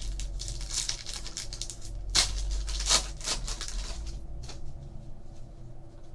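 Hands handling trading cards and their foil pack wrapper: irregular rustling and crinkling, with sharper tearing sounds about two and three seconds in.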